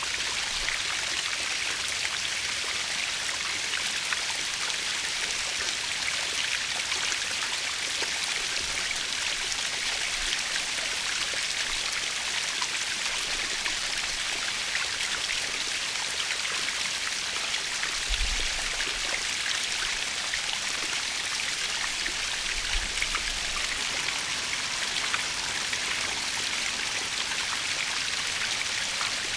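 Natural waterfall: water falling and splashing steadily in an even, bright hiss.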